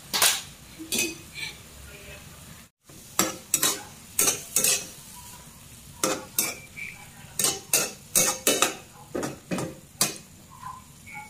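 Metal spatula scraping and clacking against a frying pan as sliced luffa and other vegetables are stir-fried, over a steady sizzle. The strokes come irregularly, about fifteen in all, and the sound drops out for a moment about three seconds in.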